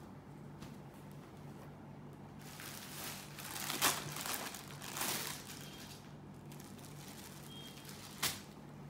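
Clear plastic packaging bag crinkling as a packed saree is handled, loudest between about three and five seconds in, with one sharp tap near the end.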